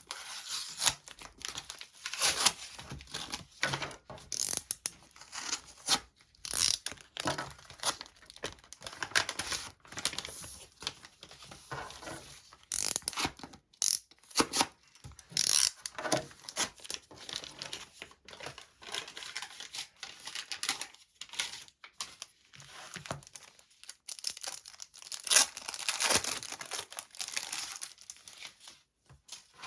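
Packaging being torn open and crinkled by hand while unwrapping parcels, in irregular rustling bursts with short pauses between.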